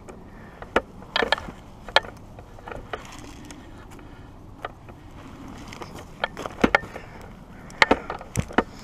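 Footsteps through dry grass and brush: irregular crackles and snaps of dry stems and twigs underfoot, a few louder ones bunched near the end.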